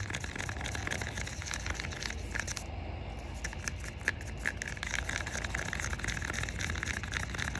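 Wooden craft stick stirring epoxy resin in a mixing cup, scraping and clicking against the cup's sides and bottom in quick, irregular strokes, with a brief pause about three seconds in.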